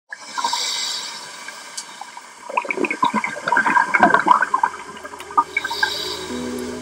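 A scuba diver breathing through a regulator underwater: a short hiss of inhaling, then a run of gurgling exhaled bubbles, then another hiss. Music with steady low tones comes in near the end.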